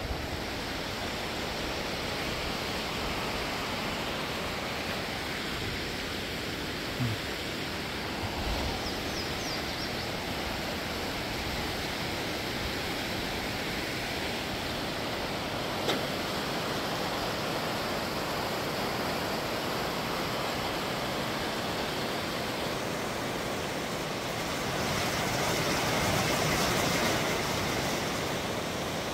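Steady rushing of a mountain creek's water, swelling a little louder about twenty-five seconds in. A couple of faint knocks stand out briefly.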